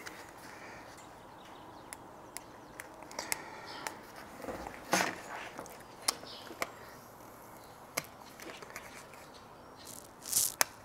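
Light handling sounds of a vinyl skin being pressed and smoothed by hand onto a laptop's palm rest: scattered small clicks and taps, with two brief rustles, about five seconds in and near the end.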